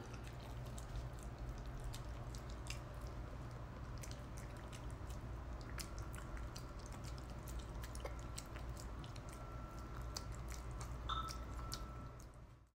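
A small dog eating wet canned food from a bowl: scattered small wet chewing and licking clicks over a steady low hum. The sound fades out near the end.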